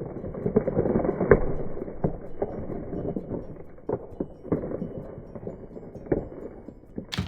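Frozen mixed vegetables clattering as they are stirred and broken up with a spoon in a pot of thick soup, with irregular knocks and scraping. The sharpest knock comes about a second in, and the clatter thins out over the last few seconds.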